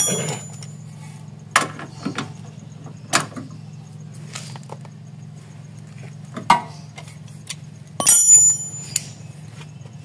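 Metal hand tools clinking and clanking as a socket on a long breaker bar is handled and fitted to a 19 mm suspension bolt. There are several separate sharp clinks, some ringing briefly, with the busiest cluster about eight seconds in. A low steady hum runs underneath.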